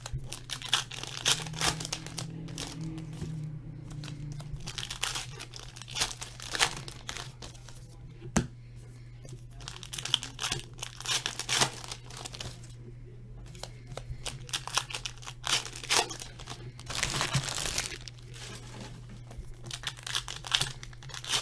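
Foil wrappers of baseball trading card packs being torn open and crinkled by hand, in irregular bursts of tearing and rustling with short pauses, over a steady low hum.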